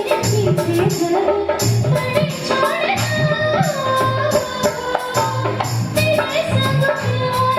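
A song: a singing voice carrying a melody over a steady beat of bass and percussion.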